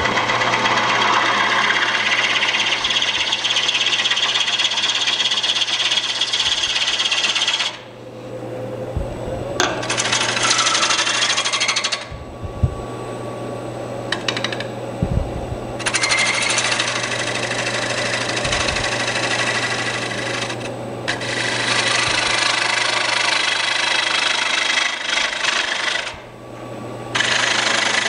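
A gouge cutting across the face of a spinning maple blank on a wood lathe, facing it off: a loud, rough shearing noise in several long passes. Between the passes there are short breaks in which only the lathe motor's steady hum is heard.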